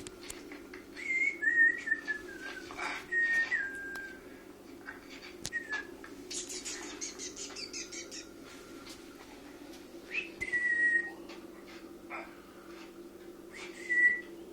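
Cockatiel whistling: several short whistled phrases of stepping and gliding notes, with a brief rustling, hissy burst in the middle.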